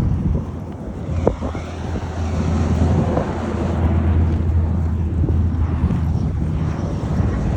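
Steady low engine rumble of vehicle traffic, swelling slightly a couple of seconds in, with one short knock about a second in.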